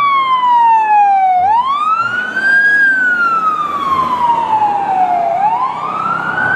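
Fire engine siren wailing: its pitch falls slowly, then climbs quickly back up, twice.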